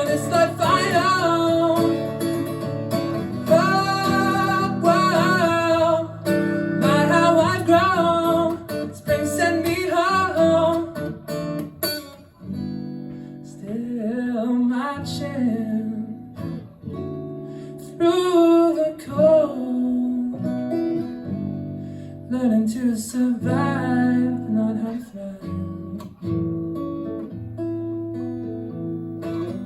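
Guitar played with a singing voice over it; the voice is strong for the first twelve seconds or so, after which the guitar carries on with only short, quieter sung phrases.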